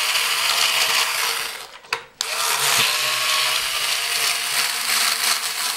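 Old Black & Decker drill-driver running steadily, backing a screw out of a plastic clock cabinet. It stops briefly about two seconds in, then runs again.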